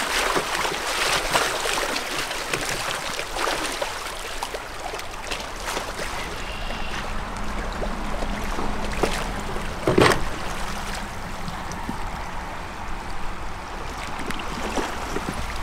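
River water moving and lapping around an inflatable raft, with scattered small knocks and one sharper knock about ten seconds in.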